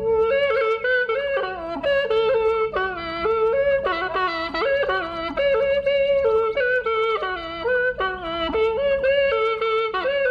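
Background music: a solo melody of held notes that slide from one pitch to the next.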